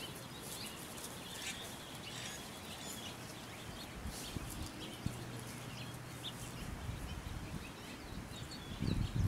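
Outdoor birdsong: many short, high chirps from small birds over a faint background, with a louder low rumble near the end.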